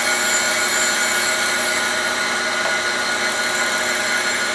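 Cylindrical grinder running steadily, its grinding wheel spinning during light quarter-thousandth infeeds on a shaft: an even mechanical hum with several fixed tones.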